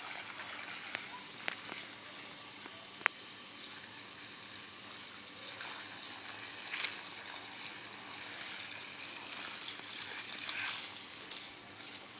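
Water running from a garden hose onto the soil around the base of a tree, a steady splashing hiss. A single sharp click about three seconds in.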